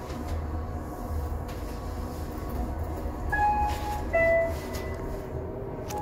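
Toshiba Elemate Cerebrum VF elevator car travelling with a low steady rumble, then its arrival chime sounds two notes, a higher then a lower, a little past halfway.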